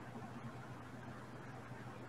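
Faint room tone: a low steady hum under light hiss, with no distinct events.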